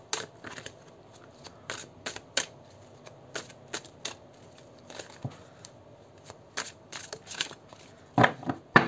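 Tarot cards being handled on a table: scattered soft clicks and taps, about one or two a second, with a louder pair near the end.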